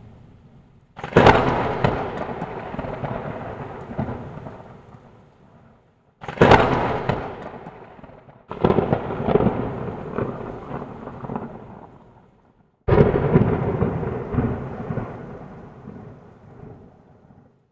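Thunder-like rumbling sound effect, four times: each starts with a sudden crack and dies away over three or four seconds.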